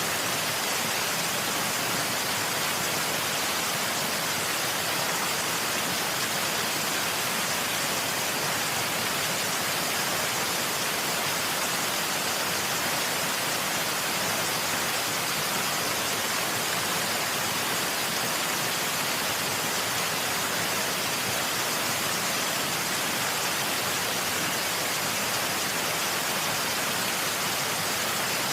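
Waterfall: a steady, even rush of falling water, mostly hiss with little bass.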